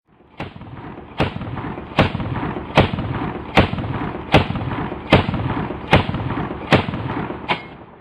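AA-12 automatic shotgun firing about ten shots at an even pace, roughly one every 0.8 seconds, each with a sharp report and a ringing tail.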